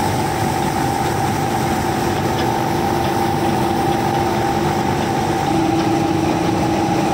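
Combine harvester running under load, its six-cylinder engine and threshing machinery making a steady, loud drone with two steady whining tones. The unloading auger is discharging wheat grain.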